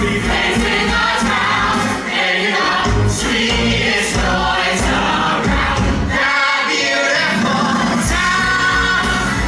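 Musical-theatre song with a choir of voices singing over full band accompaniment and a steady beat.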